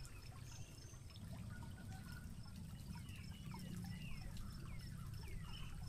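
Stream water running and trickling over rocks, with a series of short falling whistled bird calls in the second half and a faint, regular high ticking.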